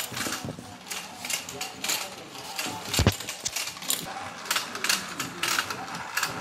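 Battery-powered toy fishing game running, its motorised pond turning with a busy clicking and rattling, mixed with handling knocks; a sharp knock about three seconds in.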